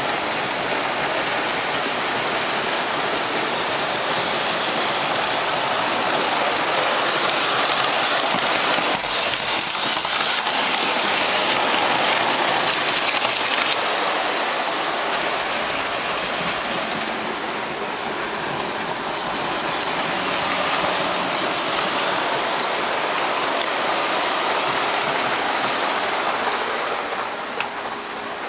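O-gauge model trains running on the layout: a steady rushing of metal wheels on the track, easing off slightly near the end.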